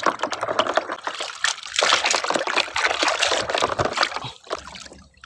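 Water splashing and trickling as a plastic toy gun is washed by hand. The splashing dies away about four seconds in.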